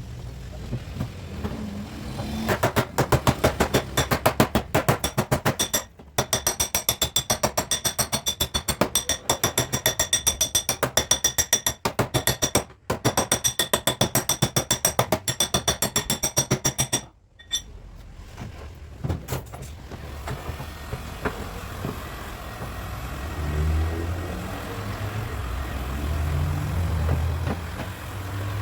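A hammer tapping on car body sheet metal in a fast, even run of about seven or eight strikes a second, each with a bright metallic ring. The run pauses briefly twice and stops a little over halfway through. A lower, uneven sound follows near the end.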